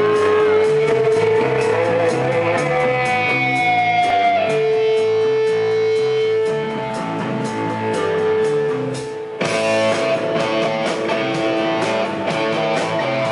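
Live rock band playing: electric guitar holding and bending notes over a steady beat. The sound turns fuller and louder about nine and a half seconds in.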